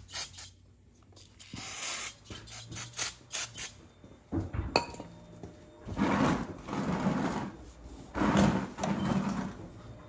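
Aerosol carb and choke parts cleaner sprayed in short hissing bursts onto a metal oil burner part in the first two seconds, followed by a click and rough scraping and clattering of metal parts and tools, loudest in the second half.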